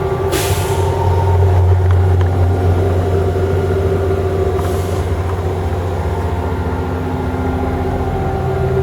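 Mack concrete pump truck's diesel engine running steadily under the mixer's hydraulic load, with two short hisses of air, one near the start and one about halfway through.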